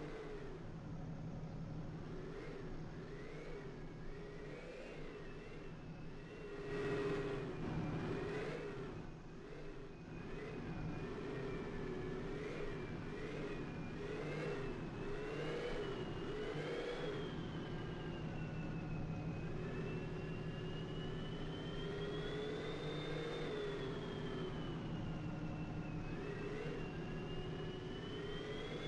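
ATV engine running under changing throttle, its pitch rising and falling again and again in short blips, then in slower swells, with a louder rough stretch about seven seconds in.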